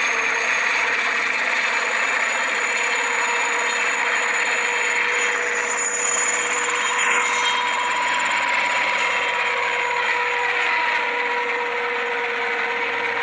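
Battery-powered toy helicopter's small electric motor running, a steady whirr with a few held tones that starts suddenly just before and keeps on without change.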